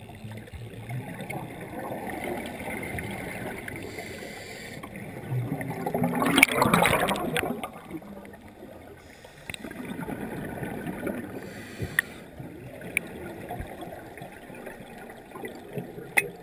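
Underwater sound of a scuba diver breathing through a regulator: a low steady rush, then a loud gush of exhaled bubbles about six seconds in. A few sharp clicks come near the end.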